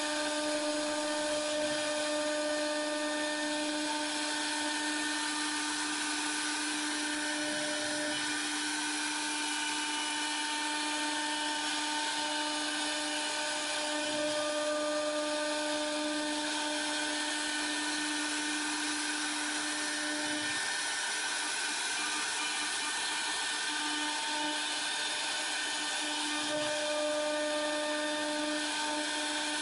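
Air-cooled 3 kW CNC router spindle running at a steady high speed, a constant whine over a hiss, as the router bit cuts into hardwood.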